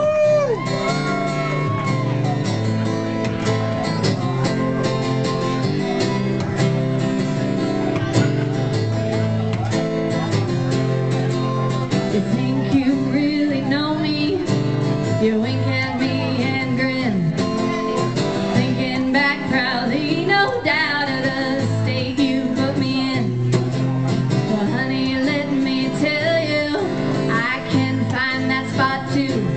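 A woman sings a song live into a microphone, accompanying herself on a strummed acoustic guitar.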